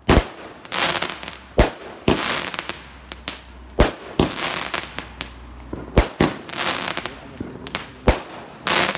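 Weco Gold Finger firework firing a rapid string of shots that burst in the air: about ten sharp bangs at uneven intervals, some close in pairs, each trailing off in a crackling hiss.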